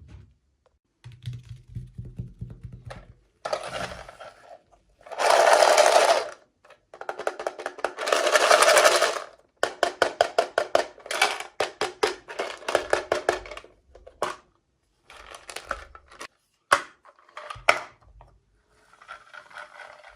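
Toy packaging being handled and opened: plastic crinkling and rustling in loud spells, with runs of rapid crackling clicks in between.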